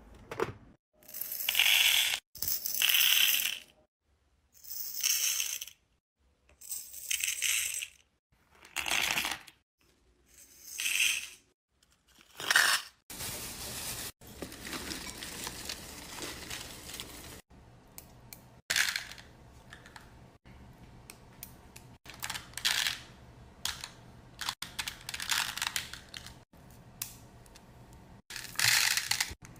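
Beads poured from small bags, clattering into the compartments of a clear plastic bead organizer box, in a series of short bursts about a second apart. About halfway through, this gives way to a plastic bag crinkling and rustling as a hand rummages in it.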